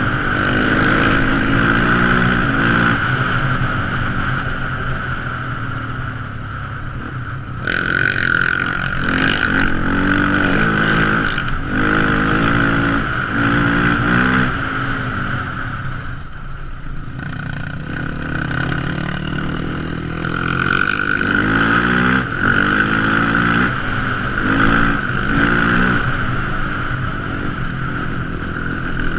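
Quad ATV engine running under way, its pitch rising and falling again and again as the throttle is worked, with a steady high whine throughout.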